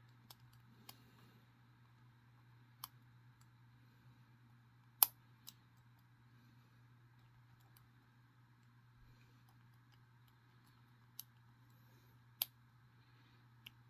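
Lock pick and tension wrench working the pin stack of a vintage bronze Yale padlock: about eight sharp, irregular clicks, the loudest about five seconds in. A faint steady hum runs underneath.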